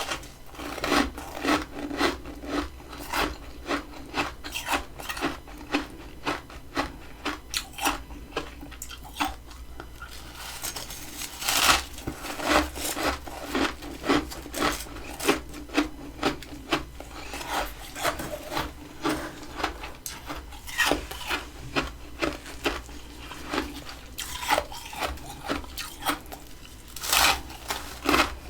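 Fluffy freezer frost crunching up close in regular strokes, about two a second, with two louder crunches, one midway and one near the end.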